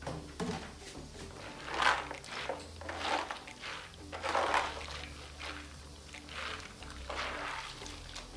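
Hands kneading and rubbing a tub of soaked açaí berries, making irregular wet swishing and rattling strokes every second or so as the berries grind against each other and the plastic tub. This is the manual pulping stage, mashing the berries to loosen the pulp from the seeds.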